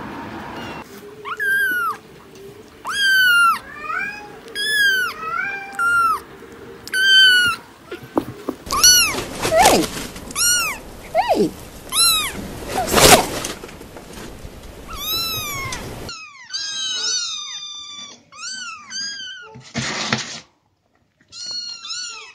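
Young kittens meowing over and over: a string of short, high-pitched mews from several kittens, each rising and falling in pitch.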